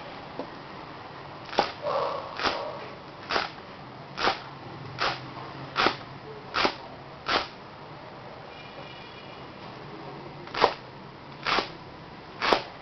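Cleaver chopping leeks on a cutting board: eight sharp chops about one a second, a pause of about three seconds, then three more chops.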